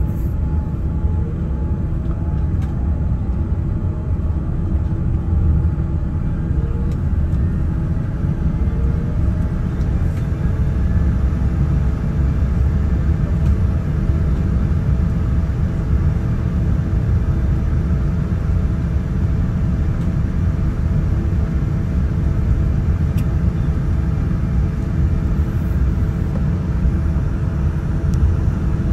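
Steady low rumble of a Boeing 787-9 Dreamliner heard from inside the passenger cabin, with faint tones rising slowly in pitch during the first ten seconds or so.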